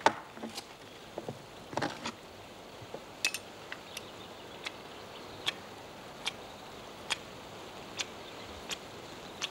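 Knife whittling a piece of wood by hand: short sharp cutting clicks, a few close together at first, then settling to roughly one a second, over a steady hiss.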